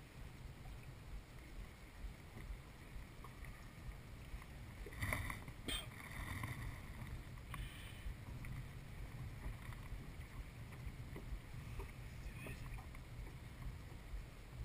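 Water lapping against a dragon boat's hull, with a low rumble of wind on the microphone and a couple of brief knocks about five seconds in.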